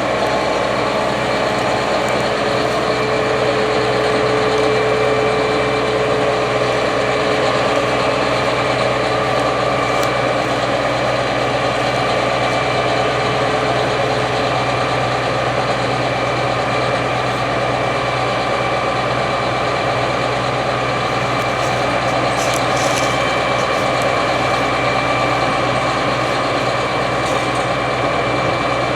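Gleaner S97 combine and its 9.8-litre AGCO Power diesel engine running steadily, a constant engine drone with steady whining tones over it.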